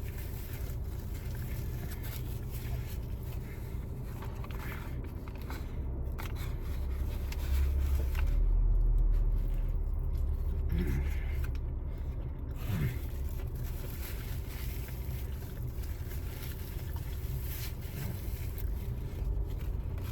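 A person eating a chicken burger, with faint chewing and scraping, over a steady low rumble that swells for a few seconds around the middle.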